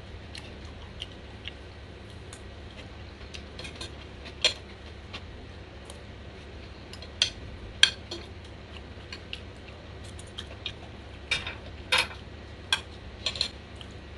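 Metal spoon and fork clinking and scraping against a plate in scattered sharp clicks. The loudest come in small clusters in the second half.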